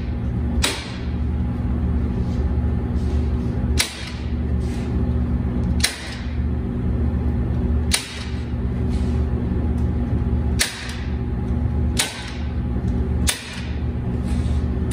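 A staple gun fired about seven times, one to three seconds apart, each a sharp snap as staples go through crushed velvet into a padded sound-board frame. A steady low hum runs underneath.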